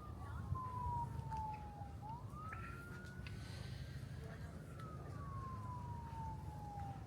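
A siren wailing: its pitch falls slowly for about two seconds, rises quickly, holds, then falls again, with a second rise near the end. Under it runs a steady low traffic rumble.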